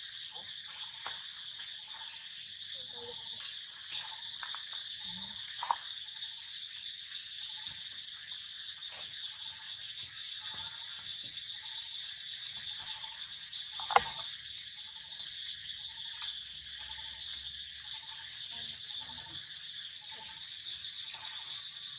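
A steady, high-pitched drone of insects calling in chorus. A sharp click cuts through it about six seconds in, and a louder one about fourteen seconds in.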